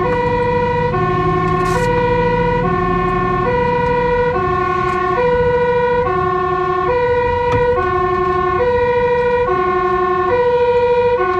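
Dutch fire truck's two-tone siren, alternating evenly between a high and a low pitch, each held a little under a second, over a low vehicle rumble.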